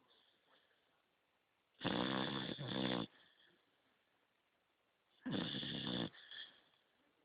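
A beagle puppy snoring in its sleep: two long pitched snores about three and a half seconds apart, the first a little over a second long, the second shorter.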